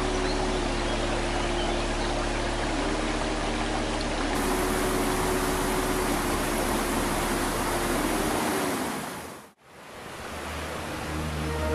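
Steady rushing water, with faint low sustained tones beneath it. It fades out about nine and a half seconds in, and music comes in near the end.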